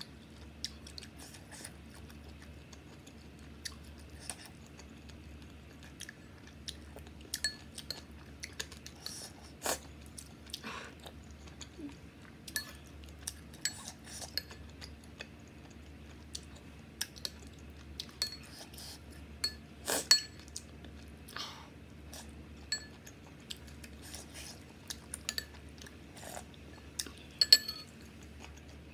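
A metal spoon clinking and scraping against a ceramic bowl of soup, with chewing in between. Short sharp clinks come scattered throughout, the loudest about two-thirds of the way through and again near the end.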